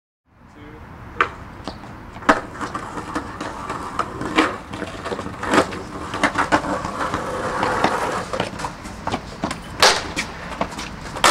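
Skateboards rolling over concrete and asphalt, with several sharp clacks as boards hit the ground, the loudest about two seconds and ten seconds in.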